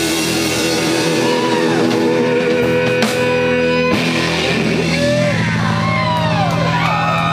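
Live rock band holding out a ringing final chord on guitars, with two sharp drum hits about a second apart. From about five seconds in, audience whoops and whistles rise over the held chord as the song ends.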